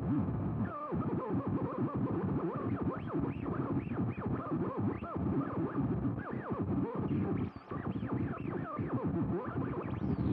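Plasma ball's electrical buzz picked up by a microphone and run through guitar effects software, giving a dense stream of quick rising-and-falling chirps over a steady low hum. It dips briefly about seven and a half seconds in.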